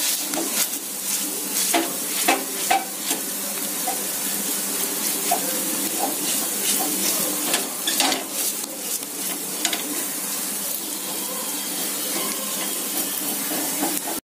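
Ghee sizzling steadily on a hot cast-iron dosa griddle while wet fingers pat and press soft rice-flour dough flat, giving many quick soft pats over the hiss. The pats thin out in the second half, and the sound cuts off abruptly at the very end.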